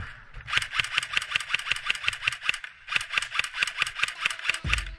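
Airsoft rifle firing on full auto: two long bursts of rapid, evenly spaced shots, about eight a second, with a short break about three seconds in.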